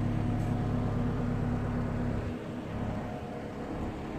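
Cat M314F wheeled excavator's diesel engine running steadily with a low hum; a little over two seconds in the hum drops away, leaving a quieter, rougher rumble.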